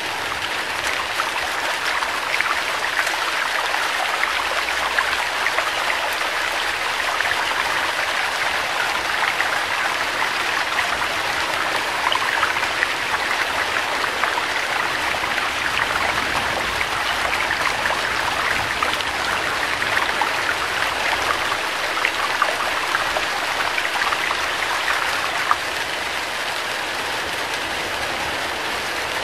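Rain falling: a steady patter made of many small drop ticks, easing slightly near the end.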